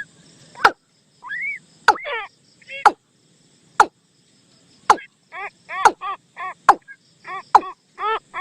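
Recorded lure call of the bird known in Thai as 'nok toom', played for trapping: sharp sweeping notes about once a second, joined from about halfway through by quick runs of short arched calls, three or four a second.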